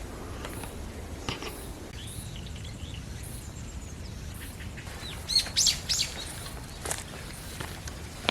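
Birds chirping in a forest: scattered short calls, then a quick run of several loud chirps about five to six seconds in, over a steady low background noise.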